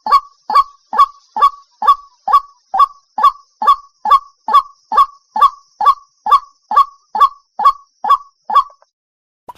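White-breasted waterhen calling: a long, even series of short rising notes, about two a second, that stops shortly before the end.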